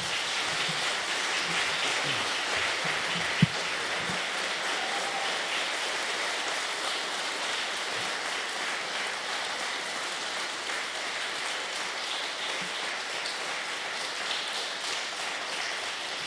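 Audience applauding in a long, steady round of clapping that eases slightly towards the end, with a single knock about three and a half seconds in.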